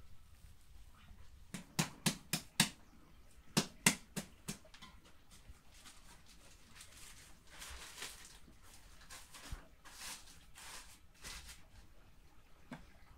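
About nine sharp knocks come in two quick runs in the first few seconds. Later there are stretches of soft rustling as a cloth is spread over a large enamel basin.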